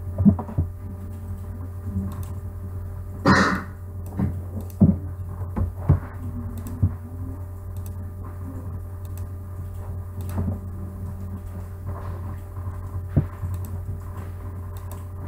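Steady low electrical hum of a desk recording setup, with scattered sharp computer mouse clicks as a selection is made, and one short noisy burst about three seconds in.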